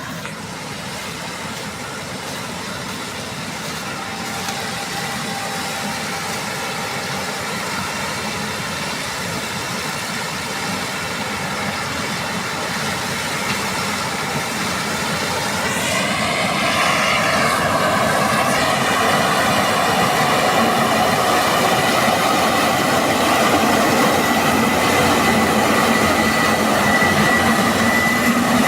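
Combine harvester running under load, a steady mechanical din that grows gradually louder. About halfway through a wavering whine rises, and a steady high-pitched tone holds through the later part.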